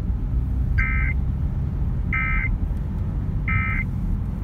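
Emergency Alert System end-of-message data tones over a car radio: three short, harsh digital bursts about a second apart, marking the end of the tornado warning broadcast. Under them runs the low rumble of the car driving.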